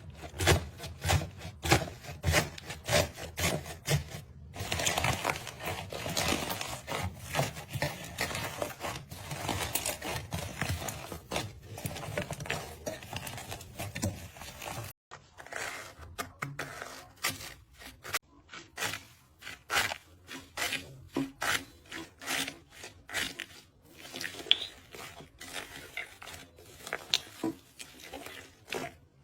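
Slime being squeezed and pressed by hand, making rapid sticky pops, clicks and crackles. The sound is denser for the first half. After an abrupt cut about halfway through, the pops come sparser.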